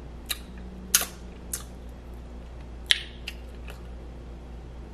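Close-miked wet mouth smacks and lip clicks of someone chewing, about six short sharp ones, the loudest about one second and three seconds in.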